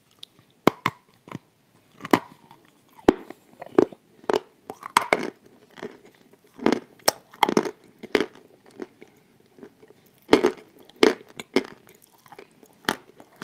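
Crisp crunching bites and chewing of pressed Turkestan edible clay tiles, close to the microphone: a series of sharp dry crunches roughly every half second to a second, with softer grinding chews between them.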